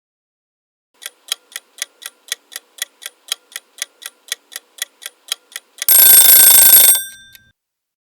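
Mechanical kitchen timer ticking, about four ticks a second, then ringing its bell loudly for about a second as it runs out.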